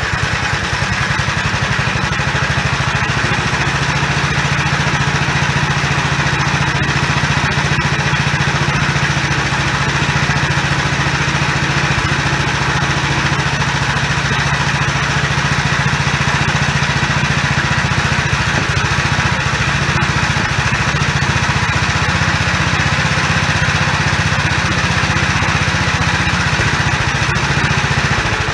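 Gravely Custom Convertible L8 walk-behind tractor's 7.6 HP engine running steadily at a constant speed, on a freshly installed carburetor with its governor bell crank adjusted to cure a high-revving problem.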